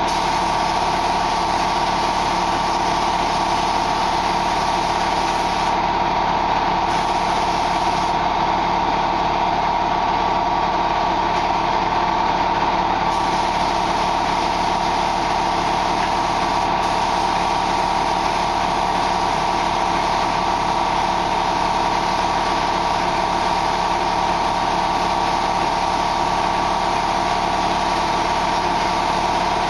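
Spray-painting equipment running with a steady, loud mechanical drone and no breaks. The high hiss changes a few times in the first half.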